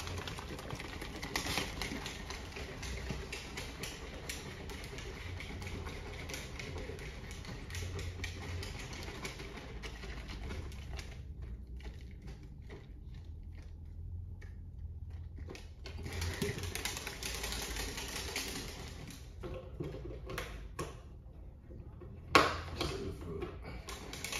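Protein shake being shaken hard in a plastic shaker bottle, a fast steady rattle. It eases off for a few seconds about halfway, starts again, and a single sharp knock comes near the end.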